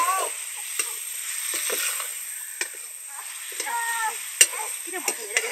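Curry sizzling in a hot pan while it is stirred, with sharp knocks of a ladle against the pan, the loudest about two-thirds of the way through. A small child whimpers briefly at the start and again about two-thirds of the way in.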